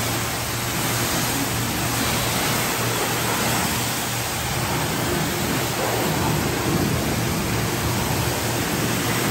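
High-pressure water spray from a self-serve car wash wand hitting the body of an SUV: a steady rushing spray that holds an even level throughout.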